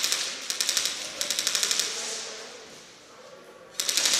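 Airsoft guns firing on full auto, a rapid mechanical clatter. Several bursts come in the first two seconds, then a lull of over a second, then sustained firing starts again near the end.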